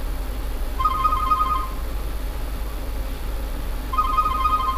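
An electronic telephone ringing: a warbling two-tone ring, each burst about a second long, repeating about every three seconds, twice here. A steady low hum runs underneath.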